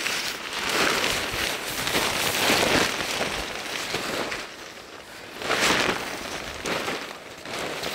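Nylon pop-up tent fabric rustling and swishing as the tent springs open and is shaken out, in several long swells of noise.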